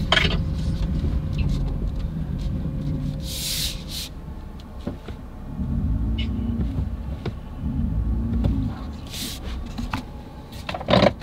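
Low engine and road rumble of a Ford Raptor's 3.5-litre twin-turbo EcoBoost V6, heard from inside the cab as the truck rolls along, swelling and easing twice. Two short hisses break in about a third of the way through and again near the end.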